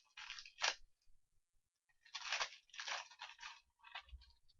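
A trading card pack's wrapper being torn open and crinkled by hand, in two stretches of rustling, the second about two seconds in.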